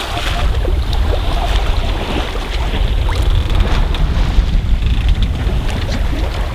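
Sea water rushing and splashing along a 1988 Sabre 30 sailboat's hull under way, with wind buffeting the microphone in a steady low rumble.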